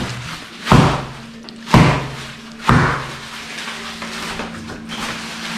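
Refrigerator freezer door banging: three heavy thuds about a second apart, followed by a low steady hum.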